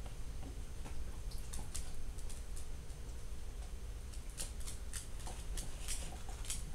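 Dog claws clicking on a hardwood floor: a run of quick, light ticks that grows busier in the second half, over a low steady hum.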